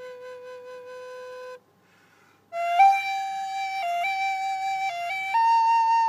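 Wooden end-blown flute holding one low note, which stops about a second and a half in. After a short pause a louder, brighter melody begins, stepping up and down between a few higher notes.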